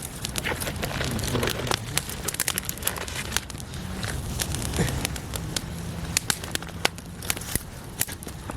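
Small campfire of sticks crackling, with irregular sharp pops and snaps.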